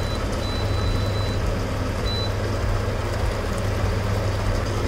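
Steady low rumble with a faint hiss from pots steaming and cooking on a kitchen hob.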